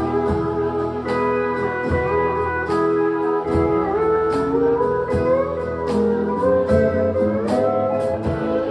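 Live country band playing an instrumental break: a lead guitar with long, sliding notes over bass and drums keeping a steady beat.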